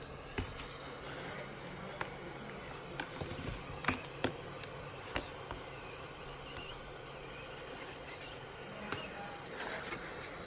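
Heat gun running steadily, its fan blowing hot air onto a laptop's metal keyboard backplate with a low motor hum, while scattered light clicks and taps sound now and then, the sharpest about four seconds in.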